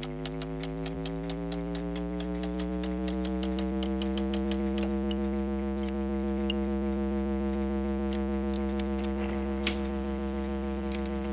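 An amplifier's electrical hum powering up, its pitch climbing slowly and then holding steady as the dial is turned toward overdrive. Rapid regular ticking, about five a second, runs through the first half and then thins out, with a sharper click about three-quarters of the way in as the jack goes into the input.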